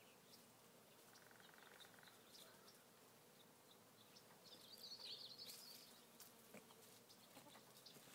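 Faint buzzing of honey bees from the open colony, with a bird twittering briefly about five seconds in.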